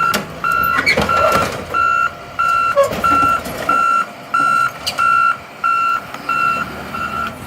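Backup alarm on a reversing vehicle or machine beeping steadily, a bit under two beeps a second, with a few sharp metal clanks and knocks in between.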